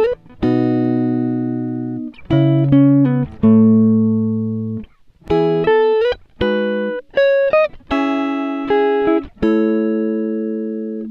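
Background music: a plucked guitar playing a slow run of notes and chords, each one ringing out and fading before the next.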